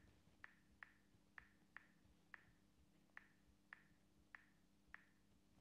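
Faint clicks of a smartphone touchscreen keyboard as a password is typed, about ten in all at an uneven pace of roughly two a second, over a faint low hum.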